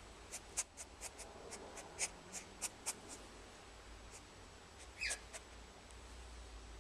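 Cockatiel chicks shuffling in a nest box: faint irregular clicks and scratches, with one short falling peep about five seconds in.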